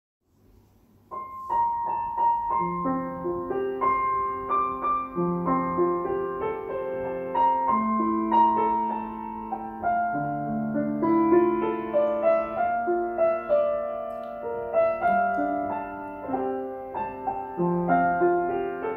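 Piano introduction to a worship song, starting about a second in: a melody played over held chords, with no singing yet.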